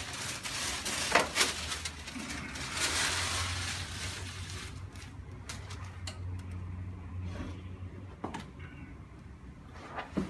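A patient settling face-down on a chiropractic table: sharp knocks about a second in, a rustling stretch, and a low steady hum for several seconds in the middle. More knocks come near the end.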